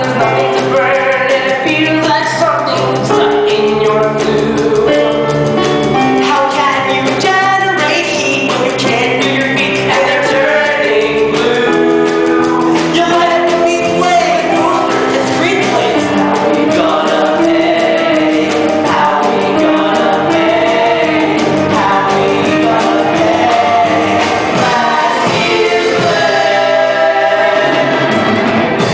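A stage musical's cast singing together as an ensemble over instrumental accompaniment.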